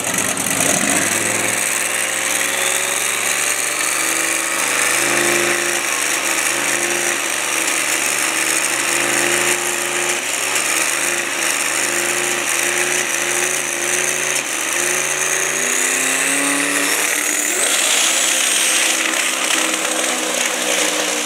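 Biturbo V8 dragster engine running loud, its pitch stepping up and down every second or so, with a high whine rising through it. Near the end the car goes into a smoky burnout and the sound turns rougher and brighter.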